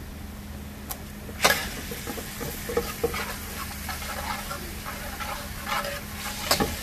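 Minced garlic sizzling in oil in a large wok while a metal spoon stirs it, scraping and clinking against the pan. A sharp clank comes about a second and a half in, the sizzle is stronger after it, and another clank comes near the end.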